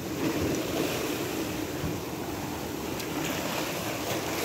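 Sea surf washing and churning against coastal rocks, a steady rushing.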